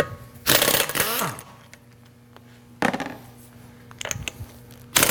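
Pneumatic impact wrench zipping wheel bolts loose in short bursts: a longer burst about half a second in, a brief one near three seconds, and another starting right at the end. Each burst is followed by a falling whine as the wrench spins down.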